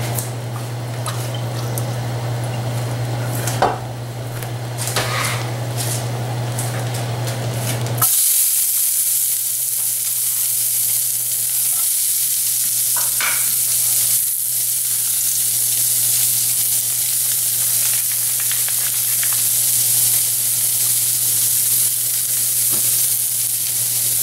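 Diced green bell pepper sautéing in a hot pan: a steady sizzle that starts suddenly about eight seconds in. Before that there is a low steady hum with a few scattered clicks.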